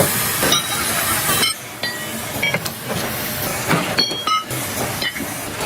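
A steady hiss for about the first second and a half, which cuts off suddenly, then a run of light metal clinks and taps with brief ringing tones, as steel parts knock together in a metalworking shop.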